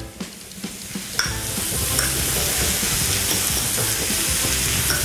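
Hamburger patty and pineapple sizzling in a hot grill pan, the steady sizzle coming up about a second in, with a fork mashing avocado in a glass bowl.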